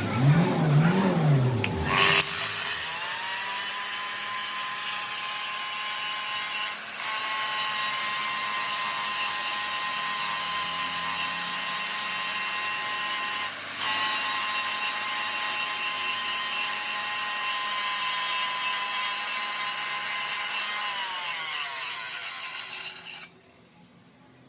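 A power tool running steadily with a high hiss and a steady whine, dipping briefly twice, then winding down and stopping near the end.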